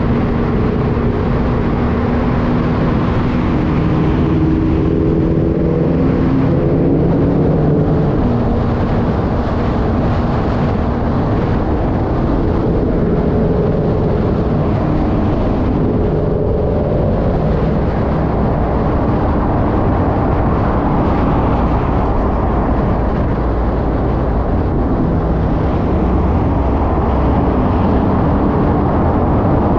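Car driving fast on an expressway, picked up by a camera mounted on its body: a steady wash of wind and tyre noise, with the engine note drifting up and down as the car speeds up and eases off.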